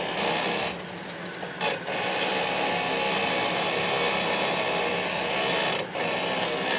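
Jeep Wrangler engine running steadily under load as it crawls up a steep dirt trail, dropping off briefly a few times.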